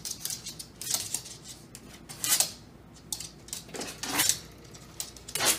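Scattered light clicks and taps of a small dog's claws on a hardwood floor, with a few louder knocks as the dog pushes against a wooden interior door.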